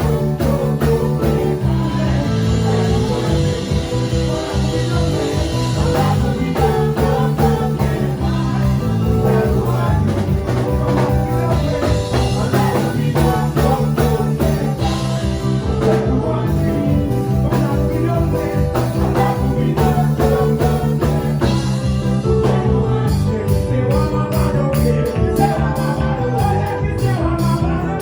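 Church praise music with singing over a steady beat and sustained chords.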